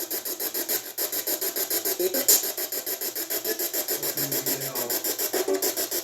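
An electronic ghost-hunting detector giving out a steady run of rapid rasping pulses, about seven a second.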